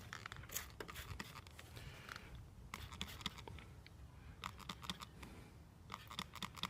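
Faint scattered soft clicks and scratchy rubbing noises: small handling sounds.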